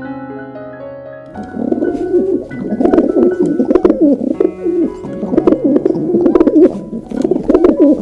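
Steady piano notes for about the first second, then a loud, dense chorus of low, quickly wavering bird calls with scattered sharp clicks.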